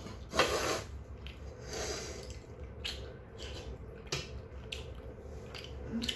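A man eating from a stainless steel bowl: chewing and slurping mouth noises close to the microphone, the loudest about half a second in, with a few short sharp clicks later on.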